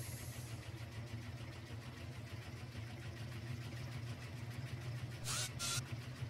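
Steady low machine hum, like a running motor, with two short hissing bursts a little over five seconds in.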